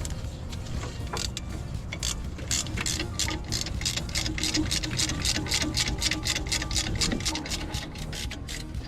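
Hand ratchet clicking quickly, about five clicks a second, while backing out intake manifold bolts.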